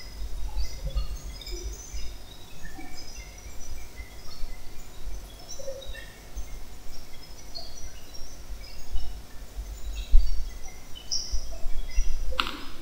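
Birds chirping in the background: scattered short calls at varied pitches over a low steady rumble, with a single sharp knock near the end.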